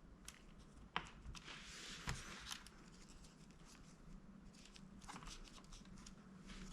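Faint handling sounds of laptop internals being connected and fitted by hand: a sharp click about a second in, then a few softer clicks and light rustles.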